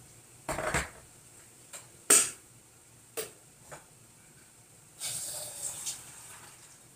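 Kitchen handling noises from cookware and utensils: a dull knock, a sharp clack about two seconds in, two lighter clicks, then about a second of hissing rustle near the end.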